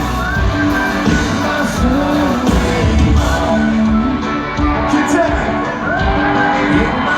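Live country-pop band playing, with a lead singer's voice over guitars and drums.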